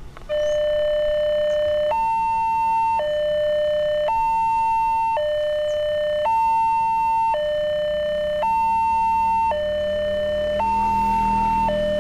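Electronic level-crossing warning siren switching on and sounding a steady two-tone alarm, alternating between a low and a high pitch about once a second, warning that a train is approaching.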